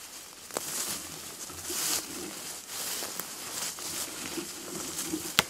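Footsteps and leafy brush rustling as someone pushes through dense undergrowth. The rustling swells and fades, with a faint sharp click about half a second in and a louder one near the end.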